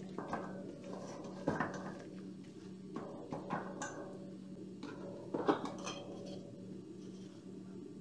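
Gloved hand mixing marinated pork strips in a stainless steel bowl, the metal bowl knocking and clanking several times, loudest about five and a half seconds in. A steady low hum runs underneath.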